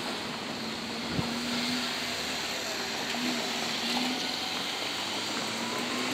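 Seibu 40000 series electric train moving slowly at a distance during a shunting move: a faint hum that comes and goes under a steady hiss of background noise, with a single click about a second in.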